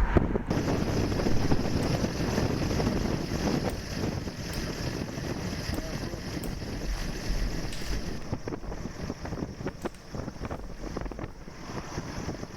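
Strong wind buffeting the microphone, a steady rough rush with a deep rumble underneath.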